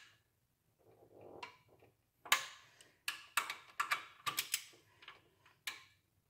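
Ratchet clicking in short strokes as cylinder-head bolts are turned a further 90 degrees in the angle-torque step of tightening down the head. A soft rustle comes about a second in, then a run of sharp, irregularly spaced clicks.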